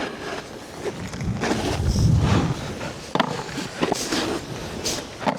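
Snowboard sliding and scraping over snow, swelling louder about two seconds in, with a few sharp knocks later on.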